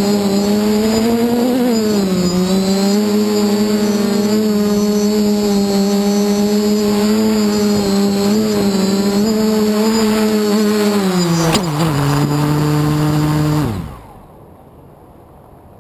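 FPV quadcopter's electric motors and propellers running in a steady buzzing hum while it hovers. The pitch drops about twelve seconds in as it comes down to land, and the motors cut off suddenly about two seconds later.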